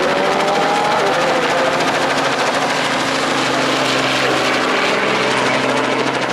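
Small two-bladed helicopter flying low overhead: rapid rotor beating over a steady engine whine, a few tones sliding slightly in pitch, easing a little near the end as it moves off.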